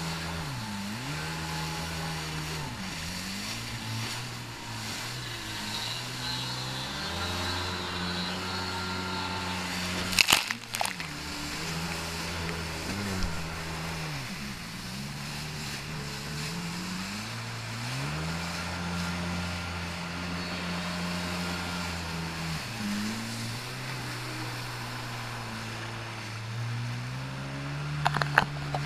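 Jet ski engine running under the rider, its pitch repeatedly dropping and climbing again as the throttle is eased off and opened, with water rushing against the hull. A sharp knock comes about ten seconds in and another near the end.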